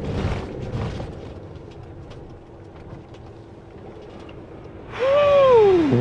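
Camper van engine running steadily, heard from inside the cab. About a second before the end, a loud drawn-out vocal sigh rises briefly in pitch and then slides down.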